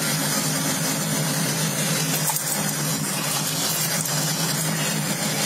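Steady engine and road noise inside a police patrol car driving at high speed.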